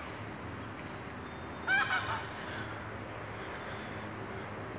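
A duck or goose gives one short honking call about two seconds in, over steady low background noise.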